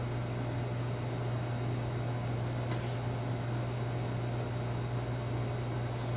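Steady low hum over an even hiss: the background drone of running commercial-kitchen equipment.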